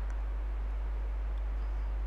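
Steady low electrical hum with faint background hiss, and a couple of faint ticks.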